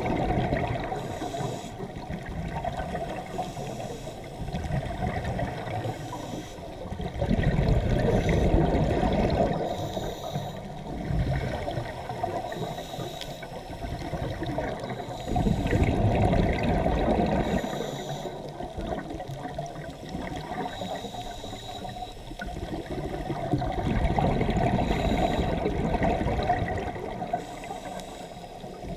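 Scuba regulator breathing underwater: exhaled bubbles rushing out in slow swells, the loudest about every eight seconds, with quieter stretches between breaths.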